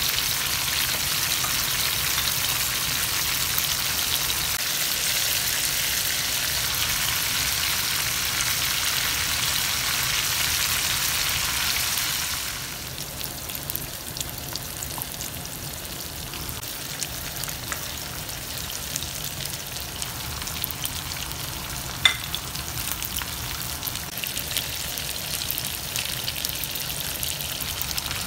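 Chicken pieces frying in hot oil in a karahi: a steady, crackling sizzle that drops to a quieter sizzle about halfway through. There is one sharp click later on.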